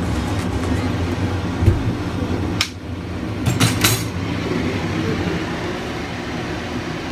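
A steady low rumbling hum, broken by a few sharp knocks about two and a half to four seconds in.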